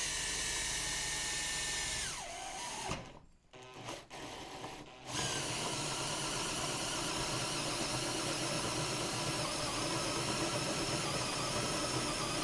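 Cordless drill spinning a 19 mm hole saw that is cutting through an aluminium strip. About two seconds in the drill winds down with falling pitch and stops briefly, then about five seconds in it starts again and cuts steadily.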